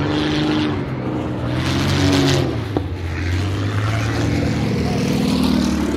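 Piston engines of low-flying propeller display aircraft running at power, their pitch sliding down and up as they pass, with a short sharp click near the middle.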